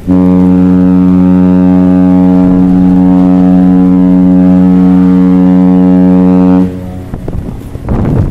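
Cruise ship's horn giving one long, very loud blast of about six and a half seconds. It is a deep, steady tone that starts abruptly and cuts off suddenly, part of an exchange of horn signals between two cruise ships.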